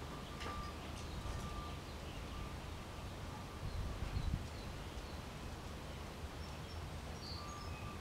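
Outdoor background: a steady low rumble with faint bird chirps and a few soft ticks. The battery itself makes no sound.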